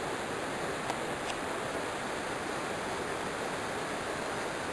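Steady rushing of running water, with a faint click about a second in.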